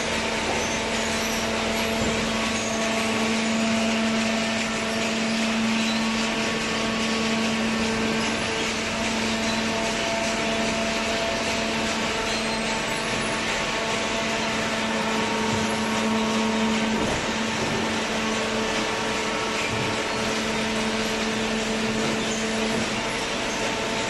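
Horizontal hydraulic cardboard baler running: a steady machine hum with a few held tones over a dense hiss.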